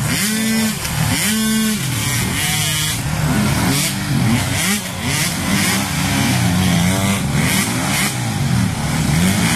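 Several off-road motorcycle engines revving up and falling back, their pitches overlapping. One bike close by revs up and down three times in the first few seconds.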